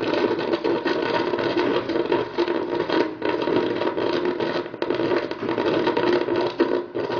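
Steam and hot water blowing out of the energy catalyzer's rubber outlet hose into a plastic bucket, a steady rushing hiss with an uneven flutter. The outlet is running at over 100 °C.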